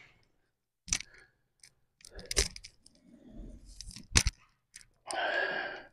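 A few sharp knocks and clacks of dumbbells being handled and set down on a rubber gym floor, the heaviest thud about four seconds in. A short breathy vocal sound follows near the end.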